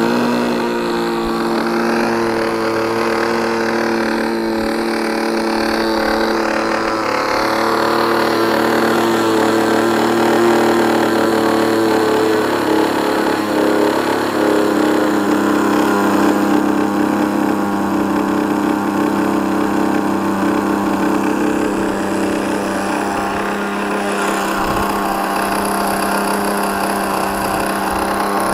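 Thunder Tiger .61 two-stroke glow engine with a Genesis quiet pipe, running steadily on the ground just after starting. Its pitch settles a little lower about halfway through.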